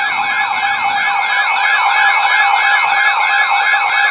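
Loud electronic siren-like alert tone warbling rapidly up and down, about three sweeps a second, over steady higher tones: the alert signal that opens an Emergency Alert System flash flood warning.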